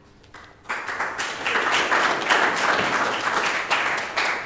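An audience applauding. The clapping swells just under a second in and dies away near the end.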